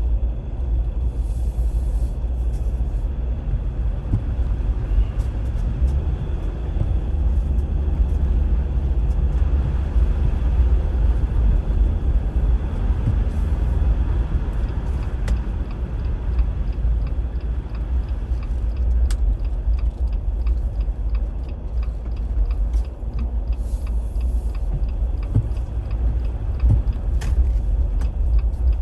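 Steady low rumble of a car driving, heard from inside the cabin: engine and road noise. A faint, regular ticking comes in about halfway through.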